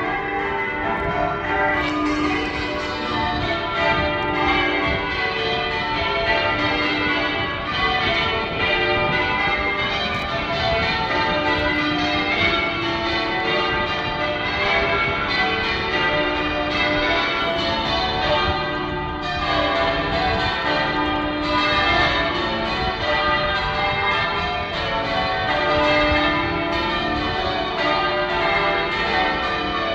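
Manchester Cathedral's bells being change-rung: a continuous run of bell strokes, with the deepest bell coming round about every four to five seconds.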